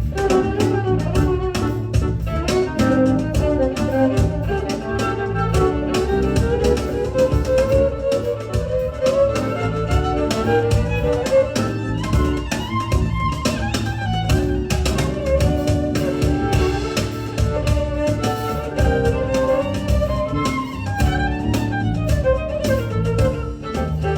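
Live ensemble music: a bowed string instrument carries a melody that climbs and falls over steady drumming.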